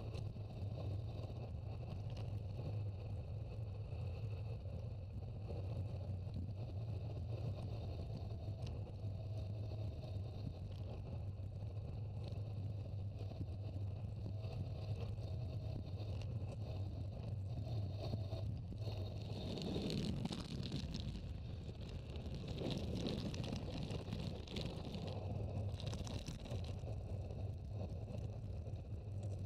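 Wind rushing over the microphone of a camera on a bicycle coasting downhill, with steady low tyre rumble on tarmac. The wind rush swells and grows rougher about two-thirds of the way through, then eases.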